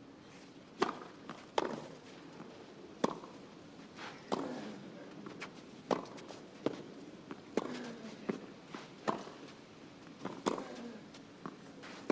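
Tennis rally on a clay court: sharp pops of rackets striking the ball and the ball bouncing, one every half second to second and a half, over a low crowd hush.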